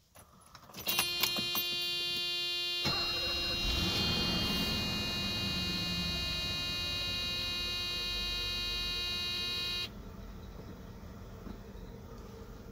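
An electronic warning buzzer comes on with the ignition about a second in and sounds steadily until it cuts off suddenly near the end. Under it, the 1987 Mercedes-Benz 420SEL's 4.2-litre V8 is cranked and starts about three seconds in, then settles into a steady idle.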